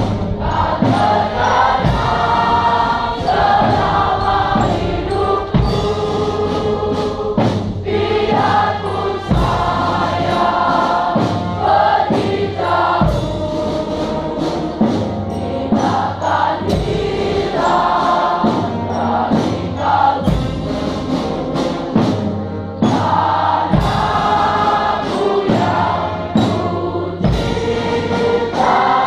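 A large choir of schoolchildren singing together, accompanied by a brass band with a steady drum beat.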